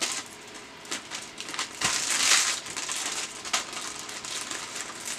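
Clear plastic baggie crinkling as it is handled and pressed down, with a louder rustle about two seconds in.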